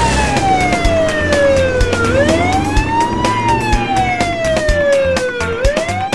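An emergency siren wailing in slow sweeps, each rising quickly and falling more slowly, about three and a half seconds per sweep, over a steady beat of clicks.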